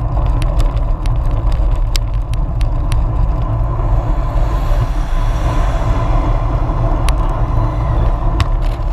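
Wind rumble and road noise on a bicycle-mounted camera while riding in traffic, with motor traffic going by. Sharp clicks and rattles come from the mount over bumps, several in the first few seconds and a couple near the end.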